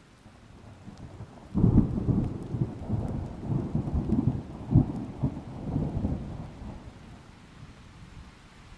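Thunder: a low rumble builds, breaks into a sudden loud clap about a second and a half in, then rolls on in several peaks before dying away near the end, with light rain faintly behind it.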